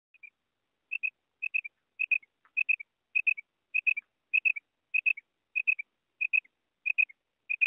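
Female common quail calling: a short, high double note, sometimes with a softer third note, repeated evenly about every 0.6 seconds, a dozen times.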